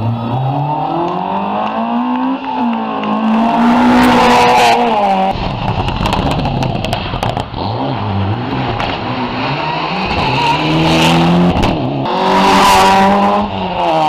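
Rally car engines accelerating hard past the roadside, the pitch climbing under load and dropping sharply at each gear change, several times over.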